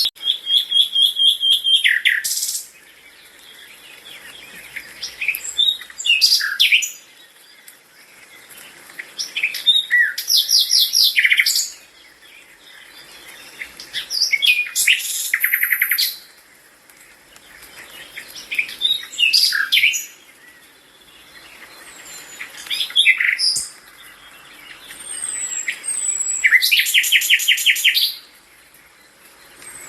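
A songbird singing repeated phrases, one about every four seconds, each made of whistled notes and a fast trill, with fainter chirps in between.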